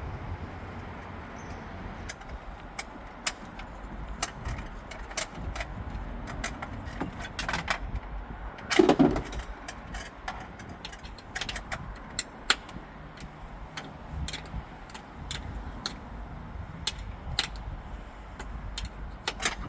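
Irregular light clicks and knocks of hand tools and metal fittings as a car's interior is unbolted, with one louder clunk about nine seconds in.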